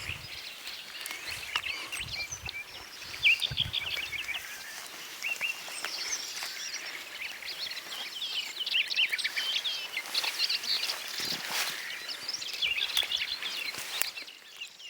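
Small birds singing and chirping, a busy chatter of short high trills and notes that goes on throughout, with a few low thumps in the first few seconds.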